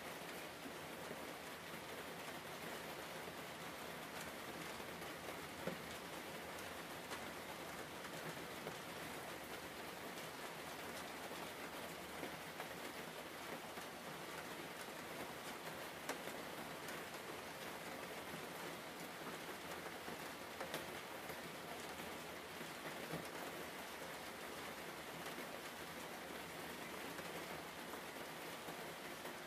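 A steady, even hiss with a few faint ticks scattered through it.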